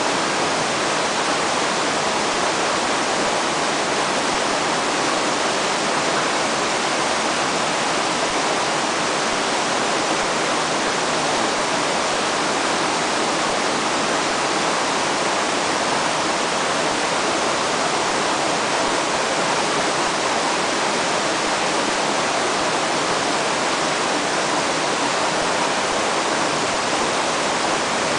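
Fast-flowing river water rushing, a steady unbroken hiss with no change in level.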